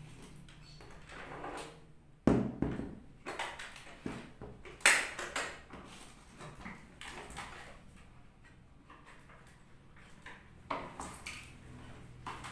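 Plastic knocks, clicks and rattles as a Krisbow canister vacuum cleaner's red plastic body is handled and turned on its cardboard box, with two sharp knocks about two and five seconds in the loudest.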